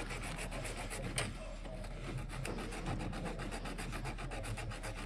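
Rapid, even scraping strokes of a hand tool rubbed back and forth over a starter cable terminal, cleaning dirt off the connection.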